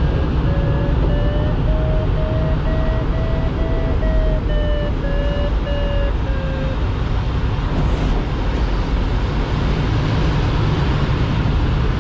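Steady rush of airflow in a glider cockpit, with the audio variometer beeping about twice a second. Its pitch rises and then falls before the beeps stop about seven seconds in, signalling lift that climbs then fades.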